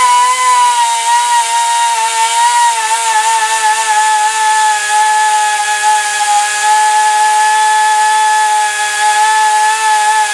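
A die grinder running at full speed, grinding away a steel worm gear: a loud, steady high-pitched whine with hiss, its pitch dropping slightly after a couple of seconds as it bears into the metal.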